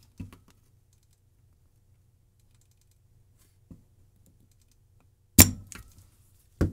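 Small spring-loaded desoldering pump (solder sucker) firing: one loud, sharp snap of the released plunger about five and a half seconds in, with a brief rattle after it and another sharp click just before the end. A couple of faint ticks come earlier.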